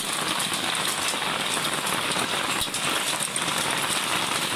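Heavy storm rain pouring down steadily: a dense, even hiss of drops pattering on the ground and surfaces.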